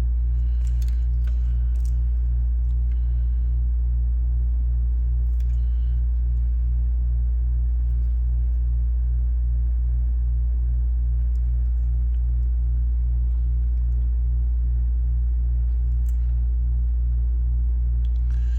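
A steady low electrical hum at mains frequency with its overtones, unchanging throughout. A few faint light clicks appear now and then.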